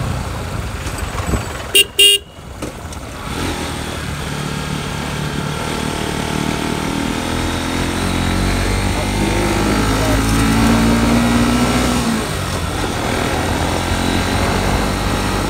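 Motorcycle engine running under way, with two short horn toots about two seconds in. The engine note swells and rises toward the middle, strongest around ten to twelve seconds in, then eases off.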